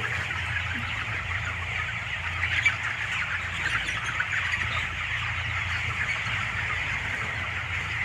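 A large flock of 27-day-old broiler chickens in a closed shed, a dense continuous chatter of overlapping clucks and peeps, with a steady low hum underneath.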